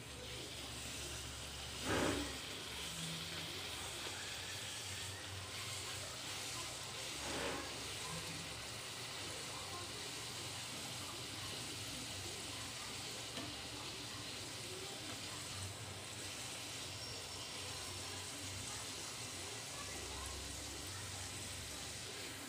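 Puri deep-frying in hot oil in a kadai: a steady sizzle, with two brief louder bursts of sizzling about two seconds and seven and a half seconds in.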